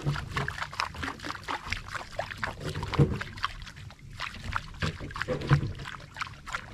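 Water slapping and splashing against the hull of a small fishing boat at sea, a busy run of irregular small splashes with a couple of louder knocks about three and five and a half seconds in.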